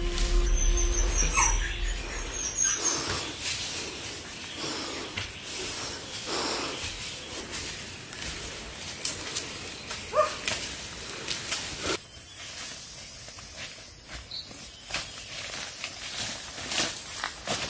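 Forest sounds: a dog rustling through leaf litter and undergrowth, with a short rising yelp about ten seconds in. From about twelve seconds, a steady high-pitched hiss of forest insects sets in under footsteps crunching on dry leaves.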